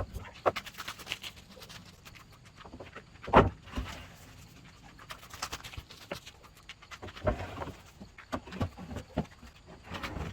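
Irregular knocks and clatter of work on wood, with one loud knock about three and a half seconds in.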